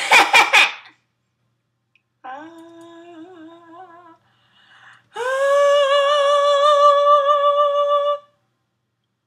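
Young female voice: a short loud yell, then about two seconds of a wavering hummed note, then a louder, higher note held for about three seconds with a slight wobble that stops abruptly.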